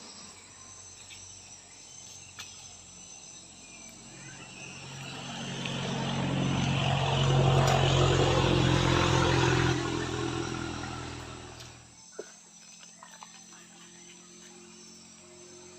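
A motor vehicle passing by, its engine and tyre noise swelling over several seconds and fading away, with insects chirping steadily in the background.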